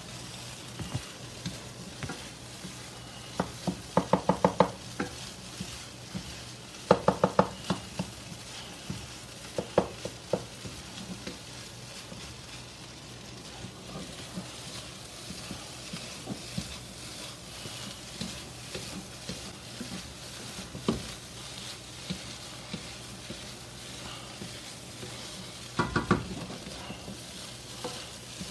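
Mushroom fried rice frying in a wok: a steady sizzle with a spatula stirring and scraping through it. Quick runs of sharp taps against the pan come about 4 and 7 seconds in and again near the end.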